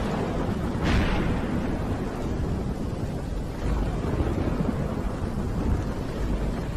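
Thunderstorm sound effect: deep thunder rumbling under a steady rain-like hiss, with a sharp thunder crack about a second in.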